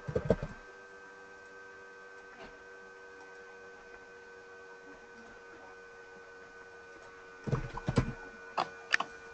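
Steady electrical hum made of several fixed tones. About a second in and again near the end come short runs of sharp clicks: computer keyboard keystrokes and mouse clicks as a user ID and password are typed into a login form.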